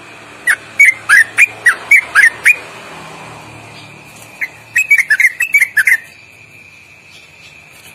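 Yellow-vented bulbul (trucuk) singing loud, sharp whistled notes in two quick runs, the second faster and more tightly packed. This is the long rapid-fire run of notes that bird keepers call 'ropelan'.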